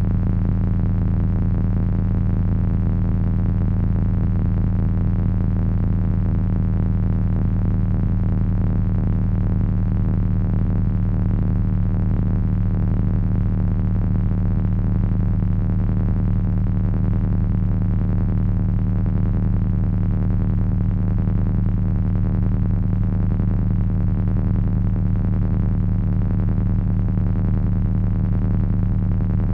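Heavy drone noise from three Frequency Analyzer v1 units controlled by an HP 200C audio oscillator: a steady, unbroken low hum with a dense, wavering buzz layered above it.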